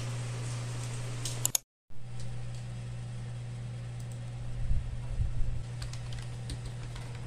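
Typing on a compact wireless keyboard with round keys: a cluster of key clicks and taps, loudest about four and a half to five and a half seconds in, over a steady low hum. The sound drops out briefly about a second and a half in.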